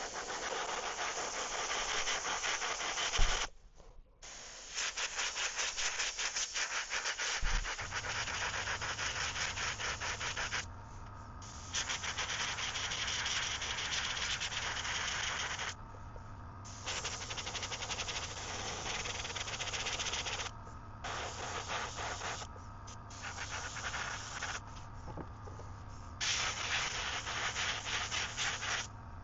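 Airbrush spraying yellow base coat paint in long hissing passes, stopping and starting several times as the trigger is released and pressed again. A low steady hum comes in about a quarter of the way through.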